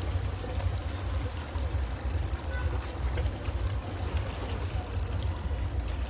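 Wind buffeting the microphone, a low, uneven rumble, with two spells of faint, fast clicking.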